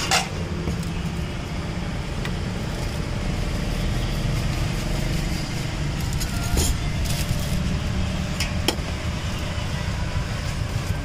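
Roadside street ambience: a steady low rumble of traffic with faint background voices, and a few light clicks about two-thirds of the way through.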